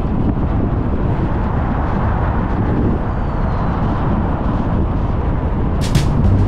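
Steady road and engine noise of a car on the move, heard from the car. Near the end, music with sharp, regular beats comes in.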